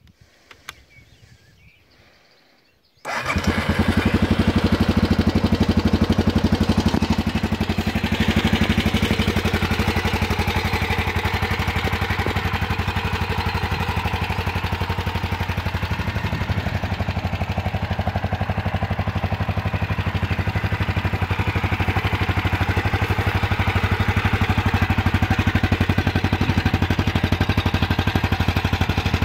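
Husqvarna TE410E single-cylinder four-stroke engine starting about three seconds in, then idling steadily with an even beat.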